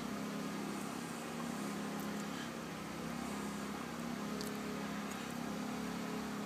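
A steady low mechanical hum, with a couple of faint light clicks about two and four seconds in.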